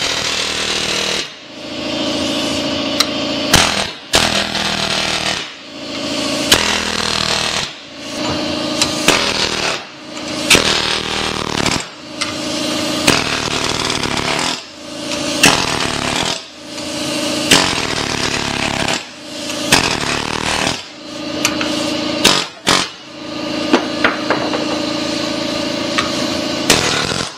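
Pneumatic air hammer with a chisel bit rattling against a stubborn pressed-in part in a steel Corvair front control arm held in a vise. It fires in short bursts of about two seconds, over and over, with brief pauses between them. The part is stuck and will not press out, so it is being driven loose with the chisel.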